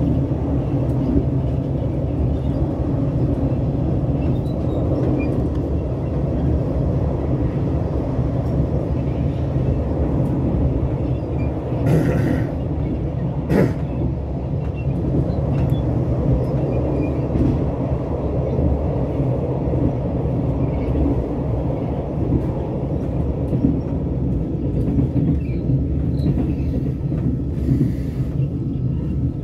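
Steady low rumble of a train running at speed, heard from inside the carriage: wheels on the rails and the coach's running noise, with two short sharp clicks near the middle.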